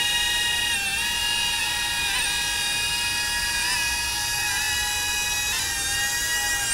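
DJI Avata drone hovering on HQProp three-blade propellers: a steady, high-pitched propeller and motor whine made of several stacked tones. Its pitch wavers briefly now and then as the motors adjust.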